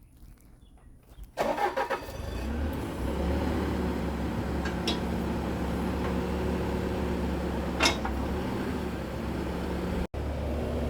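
An engine starts up about a second and a half in, then runs steadily with a low drone, with a couple of sharp clanks over it. It is most likely the engine of the machine being readied to dig the first fence-post hole.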